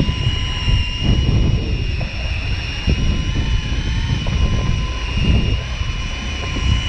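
A motor running with a steady high whine, over low gusts of wind buffeting the microphone.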